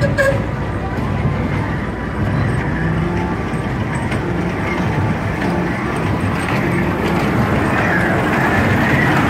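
Steady low mechanical rumble of running engines and machinery, growing a little louder toward the end.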